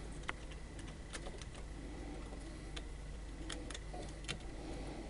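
Scattered light clicks and taps, about seven in five seconds, from things being handled, over a low steady hum.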